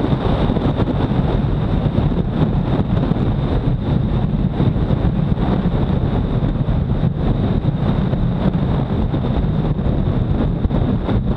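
Wind rushing and buffeting over the microphone of a motorcycle at highway speed, over the steady drone of the Honda CBR250R's single-cylinder engine.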